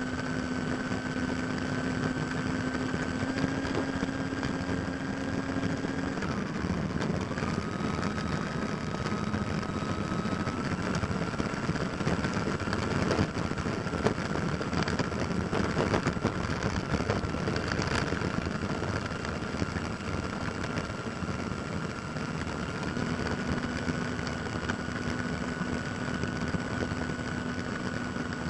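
Electric ducted fan of a Freewing 70 mm F-35 RC jet whining at low taxi throttle, its pitch dipping about six seconds in and then slowly climbing back, over the steady rumble of the small landing-gear wheels rolling on asphalt, heard close up from on board.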